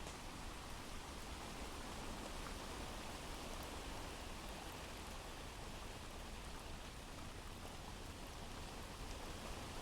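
Steady, low rain ambience from a recorded rain sound effect: an even hiss of falling rain.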